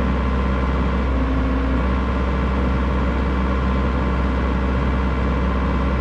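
Excavator's diesel engine running steadily, with a brief higher whine about a second in.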